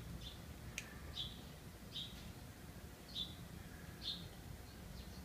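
A small bird chirping: short, high chirps repeating about once a second, over a faint low background rumble. A sharp click comes about a second in.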